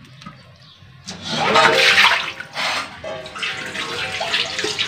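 Water pouring and splashing in a steel bowl while pork and potato pieces are washed at a kitchen sink. It starts about a second in and is loudest soon after.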